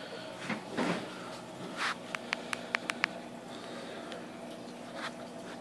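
Steady low hum of running aquarium equipment in a room of fish tanks. About two seconds in comes a quick run of about six sharp clicks, with a few soft rustles around them.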